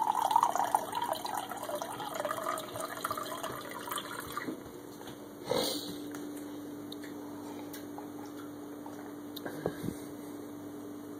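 Water running from the spigot of a plastic water jug into a mug for about four seconds, the sound of the stream shifting as the mug fills. A single knock comes about halfway through, followed by a steady low hum.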